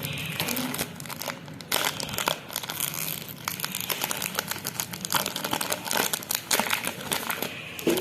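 Pokémon booster pack's foil wrapper crinkling and tearing as it is ripped open by hand, with dense irregular crackles throughout.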